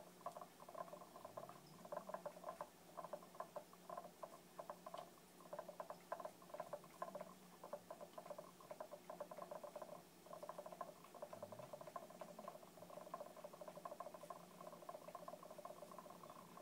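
Polished mineral sphere chattering against the base of an upturned cut-crystal glass: a faint, rapid rattle in uneven bursts, each carrying a ringing note, which the owner takes for sympathetic vibration between orb and crystal. A faint steady hum lies underneath.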